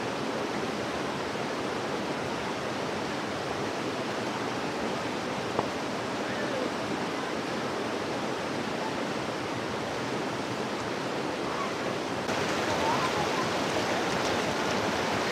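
Steady rush of flowing river water, a little louder about twelve seconds in, with one sharp click near the middle.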